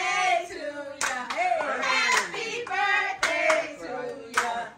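Several people's excited voices calling out and laughing together, with scattered hand claps.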